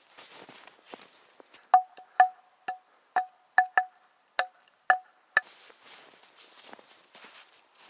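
Hanging wooden board struck with a wooden mallet: about nine hollow wooden knocks in an uneven rhythm over about four seconds, each with a short ringing tone.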